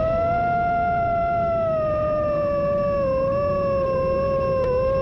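A steady high whine, like a small motor running, whose pitch drifts slowly up and then back down, over a low rumble.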